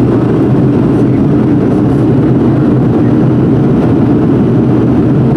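Boeing 737-400 cabin noise heard over the wing as the airliner taxis: its CFM56 turbofans running in a steady, loud, low drone.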